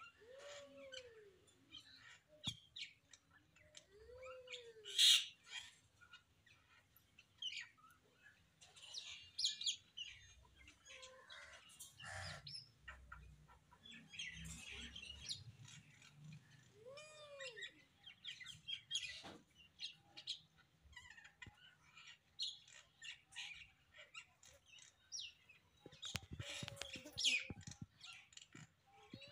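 Birds chirping: scattered short high chirps, with a few lower calls that rise and fall in pitch, the loudest about five seconds in.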